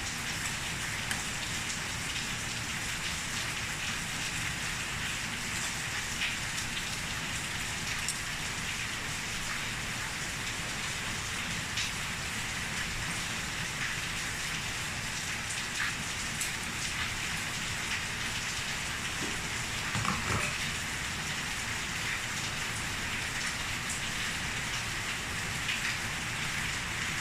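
Steady rain falling, with scattered drop ticks, and a few brief knocks about twenty seconds in.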